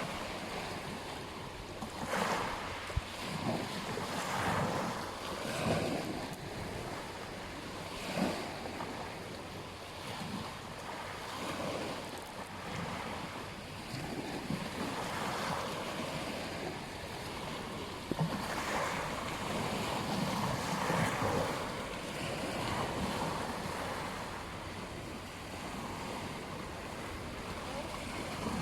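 Ocean waves breaking and washing onto a beach, rising and falling in swells every few seconds.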